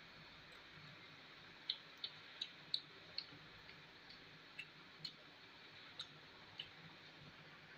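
Faint, irregular clicks and ticks, about nine in all, from eating by hand off a stainless steel plate. Most of them come close together in the first half and thin out after.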